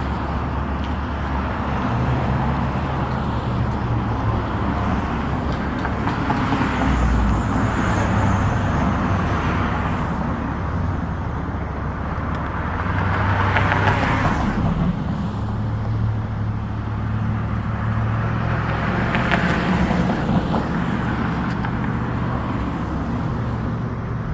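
Motor vehicle engines running in street traffic, their low drone shifting in pitch, with two louder swells of passing vehicles about 13 and 19 seconds in.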